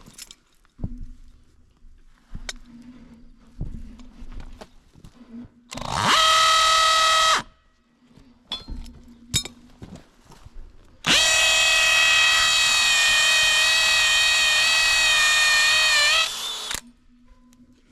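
DeWalt 20V Max XR cordless drill boring into a tree trunk in two runs: a short burst about six seconds in, then a longer steady run of about six seconds from around eleven seconds, each spinning up to a high whine. Scattered knocks and handling clicks fall between the runs.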